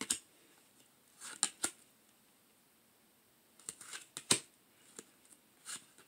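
Blue Bird Lenormand cards being handled in the hand: short, sharp snaps and brief slides of card stock in a few small clusters as cards are moved through the deck.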